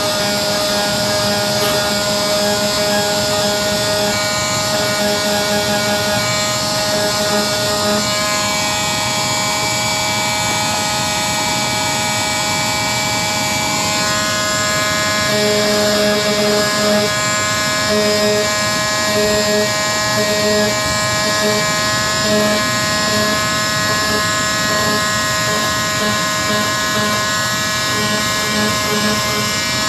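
Electric power sander running steadily with a motor whine, its pitch shifting twice and a pulsing hum coming and going as it works over the motorcycle's bodywork.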